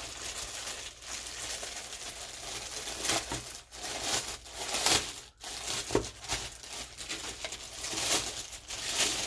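Packaging crinkling and rustling as a new pair of shoes is unwrapped and handled, with louder crackles at irregular moments.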